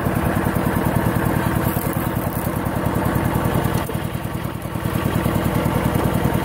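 Single-cylinder diesel engine of a Kubota two-wheel walking tractor chugging steadily under way with a fast, even beat, pulling a loaded trailer; it eases off briefly about four seconds in, then picks back up.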